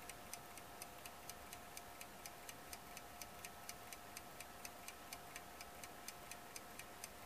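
Westclox Big Ben De Luxe wind-up alarm clock ticking steadily, a little over three ticks a second: its movement running again after a slight nudge. A faint steady hum lies underneath.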